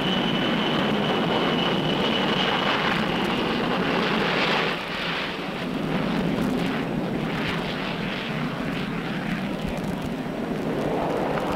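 Four Pratt & Whitney turbojets of the Boeing 367-80 (Dash 80) prototype at takeoff power during the takeoff roll: a steady jet roar with a thin high whine over it. About five seconds in the whine stops and the roar dips slightly, then carries on rougher and fluttering.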